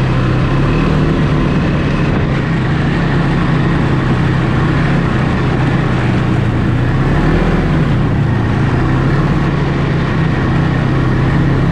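Snowmobile engine running at a steady cruising speed, loud and even, with a continuous rushing noise underneath.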